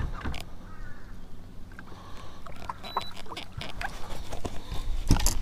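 Handling noise in a bass boat: scattered clicks, knocks and rustling as a freshly caught bass is handled over the deck, with a louder knock near the end. A brief high beep sounds about three seconds in.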